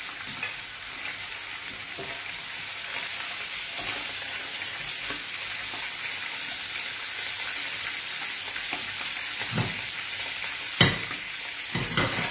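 A soffritto of garlic, anchovy, onion and chili sizzling steadily in hot oil in a frying pan, stirred with a wooden spoon. A few sharp knocks come near the end, the loudest about eleven seconds in.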